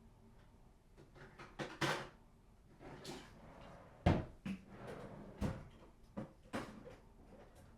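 Household knocks and clunks of housework: a run of light clicks and taps, short rustling swishes about two and three seconds in, and two heavier thumps past the middle, the first of them the loudest.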